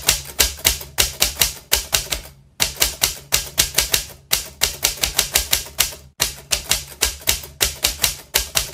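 Typewriter keystroke sound effect clattering in quick runs of about six clicks a second, with brief pauses between runs, over a faint low hum, as the on-screen text types itself out.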